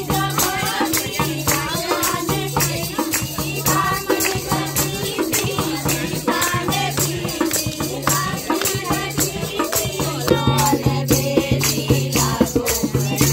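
A group of women singing a Holi folk song, accompanied by a dholak drum, a tambourine with jingles, and hand-clapping that keep a fast, rhythmic beat.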